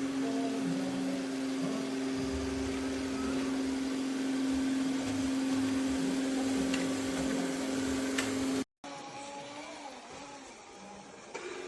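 ECOVACS DEEBOT T80 Omni robot vacuum-mop running with a steady motor hum on one constant pitch. About three-quarters of the way through, the sound cuts off abruptly and a quieter machine whir takes its place.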